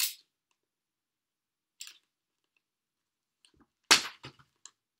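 Plastic wrapping on a sealed vinyl record crackling in three short, sharp snaps as fingers pick and pull at it. The loudest snap comes about four seconds in and is followed by a few small ticks. The wrap is not coming open yet.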